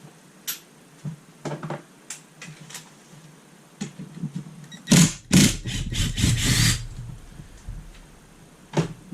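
Metal clinks and knocks of hand tools and parts on a motorcycle engine's split crankcase during removal of the transmission shift drum, with a louder, denser clatter from about five to seven seconds in.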